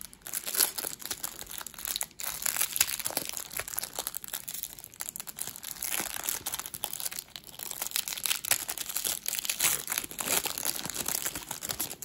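Clear plastic wrapper of a hockey card pack crinkling and tearing as it is worked open by hand, a dense run of small crackles.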